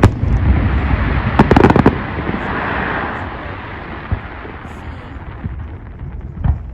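Fireworks display going off: a sharp bang at the start, a rapid cluster of cracks about a second and a half in trailing into a crackling fizz that fades, and another bang near the end.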